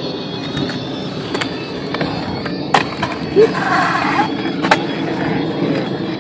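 Skateboard wheels rolling on a concrete skatepark bowl with a steady rumble, broken by a couple of sharp clacks from the board, about three seconds in and again near five seconds.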